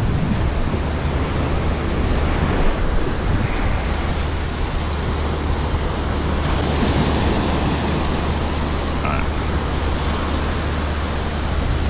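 Ocean surf washing onto the beach, steady and full, with wind buffeting the microphone as a constant low rumble.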